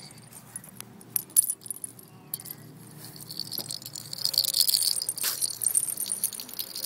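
Hollow plastic cat jingle balls with bells inside, clicking and jingling. A few separate sharp jingles come in the first two seconds, then a run of continuous jingling from about three and a half to six seconds in as the ball is shaken.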